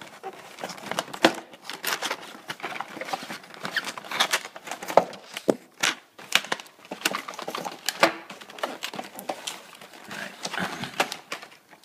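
Clear plastic packaging tray being worked out of a cardboard box by hand: irregular scraping and rustling with many sharp clicks of plastic against cardboard.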